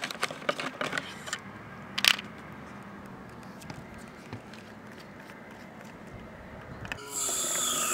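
Plastic clicking and scraping as the sprayer head is unscrewed from a hose-end sprayer jug and a plastic baby-shampoo bottle is handled, with one sharp click about two seconds in. Near the end a louder, steady sound with several held tones, some falling in pitch, starts suddenly.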